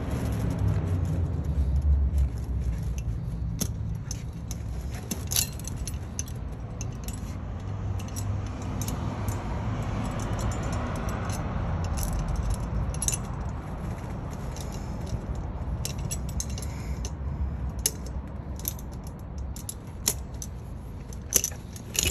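Steel tractor tire chain links clinking and jangling as the chain is pulled tight with a chain-tensioning lever tool and a spring tensioner leg is hooked on. There are scattered sharp metal clicks over a steady low rumble.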